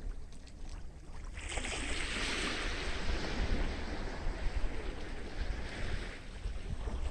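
A sea wave breaking and washing up the beach, its hiss swelling about a second and a half in and fading away a few seconds later, over wind buffeting the microphone.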